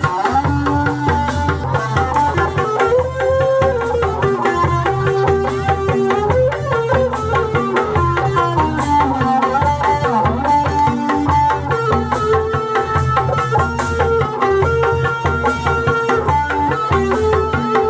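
Music: a steady, regular hand-drum beat under melodic instrument lines, typical of a Sundanese kendang-led ensemble.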